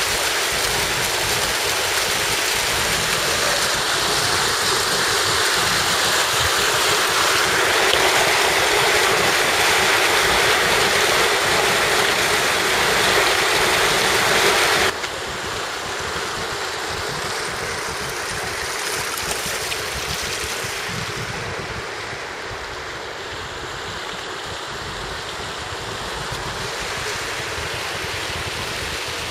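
Water from a fountain's rows of vertical jets splashing and falling back into the basins: a steady, loud rushing hiss. About halfway through it drops suddenly to a quieter, duller rush.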